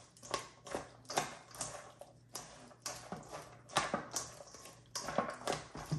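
Utensils clicking and knocking against a mixing bowl as a shredded cabbage, carrot and jicama slaw is tossed with its dressing: a run of irregular sharp clicks, a few a second.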